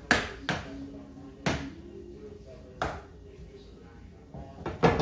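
A spoon knocking and scraping against a frying pan as food is stirred in it: a handful of sharp clacks spread irregularly, the loudest pair near the end.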